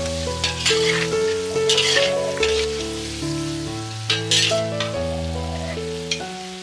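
Food sizzling and frying in a pan, with short crackling spurts, under background music of held notes that change every half second or so.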